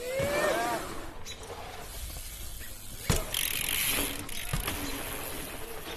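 Mountain bike riding over dirt jumps: tyres rolling on dirt and wood, with freehub ticking. A short rising squeal right at the start, a sharp knock about three seconds in with a burst of rolling hiss after it, and a softer knock a little later.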